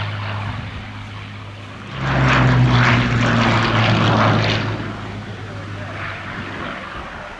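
Hawker Sea Hurricane's Rolls-Royce Merlin V12 engine and propeller, heard as a steady drone during a flypast. It swells suddenly about two seconds in as the fighter passes close, the note dropping slightly, then fades away.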